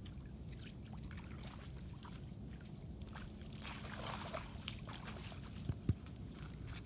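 A large dog splashing through shallow lake water about halfway through, over a steady low rumble. Two short, dull thumps near the end.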